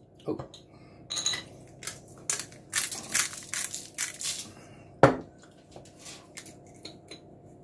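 Aluminium foil crinkling and crunching as food is arranged on it, in irregular bursts, with one sharp knock about five seconds in.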